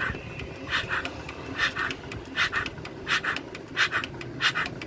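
D10 RM90 single-cylinder diesel engine turning over slowly, air wheezing out in paired puffs about every three-quarters of a second: the grunting, pig-like sound of air leaking past the van gió (air valve), with very poor compression.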